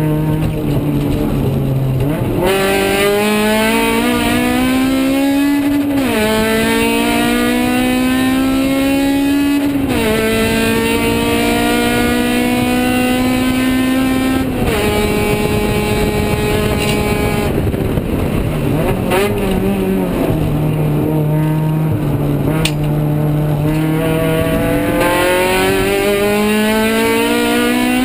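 Honda K20Z1 2.0-litre four-cylinder engine in a 1999 Civic race car, heard from inside the cabin under hard acceleration on track. The revs climb and drop sharply with upshifts about 6 and 10 seconds in, hold steady, then fall back to a low steady pitch as the car slows for a corner, and climb again near the end.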